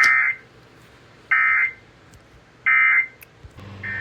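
Emergency Alert System end-of-message (EOM) SAME data bursts: three short, loud warbling digital squawks, each about a third of a second, spaced about a second and a third apart, marking the end of the alert. A steady tone with a low hum comes in just before the end.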